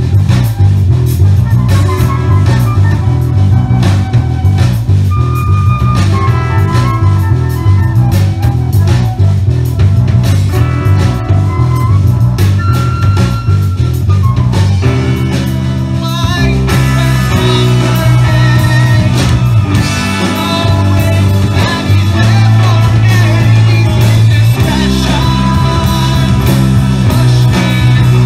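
Live progressive rock band playing loudly: electric guitar, bass guitar, drum kit and keyboards, with a flute on the melody. About halfway through, the busy drumming and lead line give way to longer held chords over a steady bass.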